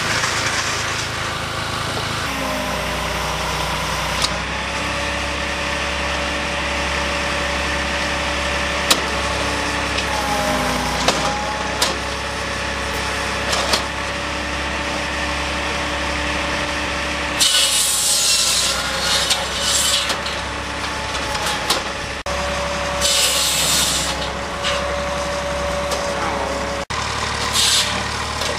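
Engine-powered firewood machinery running: a steady engine drone with held tones that dip briefly about ten seconds in. In the second half come several bursts of harsh high noise as logs are cut.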